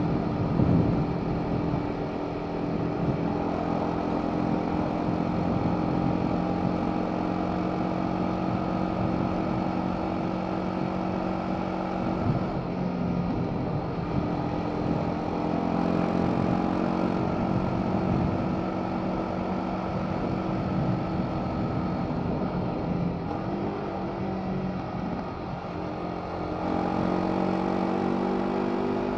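BMW G 310 R's single-cylinder engine through its stock Euro 5 exhaust, running at a steady cruise under the rush of riding wind. About three quarters through, the engine note eases off briefly, then picks up again near the end.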